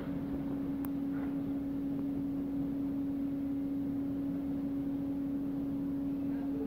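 Steady one-pitch electric hum from a standing ÖBB Taurus electric locomotive, over a low background haze, with one faint click about a second in.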